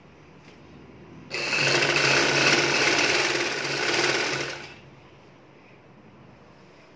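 Vidya sewing machine stitching in one continuous run. It starts a little over a second in and stops after about three and a half seconds.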